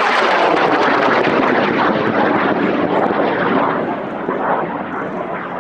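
Aerotech N2000 White Lightning high-power rocket motor burning at liftoff: a loud, steady rushing noise with crackle that begins to fade about four seconds in as the rocket climbs away.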